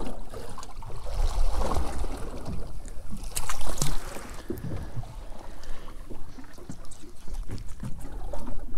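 Wind rumbling on the microphone and water moving against a small boat's hull, with a few sharp clicks about three and a half seconds in.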